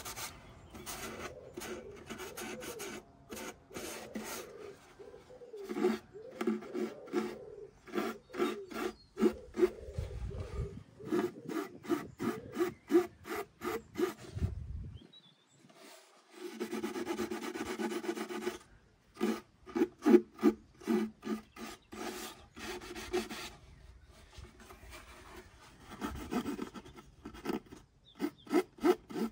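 Hand-sanding the bare wooden body of a viola with fine sandpaper as it is readied for the ground. The paper rasps over the wood in runs of short back-and-forth strokes, about two a second, broken by brief pauses.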